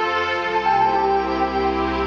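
Live rock band playing an instrumental passage, electric guitars and keyboards holding sustained chords over bass, with the chord changing about half a second in.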